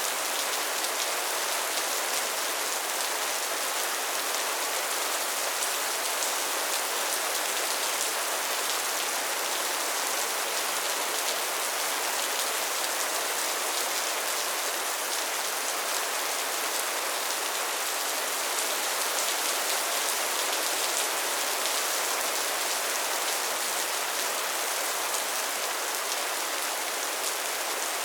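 Steady rain falling: an even hiss of drops with fine patter, mostly in the upper range and with little low rumble.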